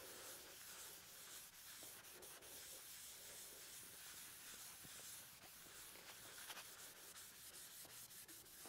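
Faint rubbing of a folded rag wiped over a walnut board, spreading mineral spirits on the wood.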